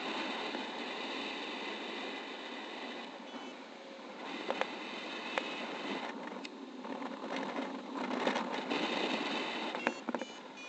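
Wind rushing over the camera microphone of a paraglider in flight, with a few short high beeps from the flight variometer and scattered sharp clicks.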